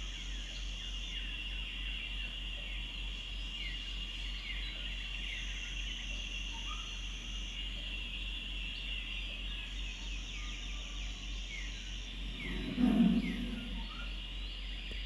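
Outdoor nature ambience: a steady high insect drone with many short, falling bird chirps over it, and a higher insect buzz that starts and stops every few seconds. About thirteen seconds in, a brief louder low sound rises over the rest.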